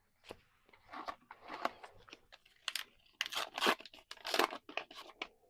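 A trading-card booster pack wrapper being torn open and crinkled by hand: a run of rustling rips and crackles, loudest in the second half.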